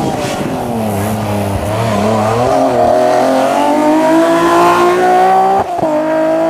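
BMW E36 3 Series race car's engine under hard acceleration. The pitch dips briefly, then climbs steadily as the car pulls uphill. Near the end it breaks off suddenly and climbs again.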